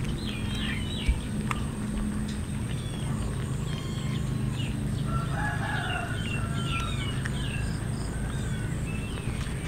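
Birds calling: scattered short high chirps, with a longer call about five seconds in, over a steady low hum.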